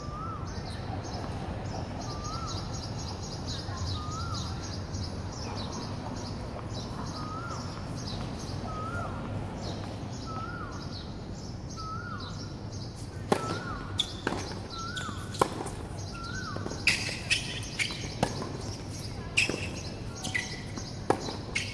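A bird repeats a short rising-then-falling call over and over, about every second and a half, with other birds chirping higher. From a little past halfway, sharp knocks of a tennis ball bouncing and being struck by rackets on a hard court.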